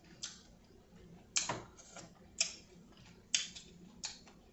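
Close-miked mouth sounds of chewing lobster tail meat: about five short, wet smacking clicks roughly a second apart.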